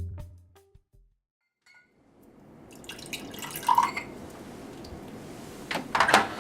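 Background music fading out into a moment of near silence, then quiet room ambience with a few scattered clicks and knocks, the sharpest near the end.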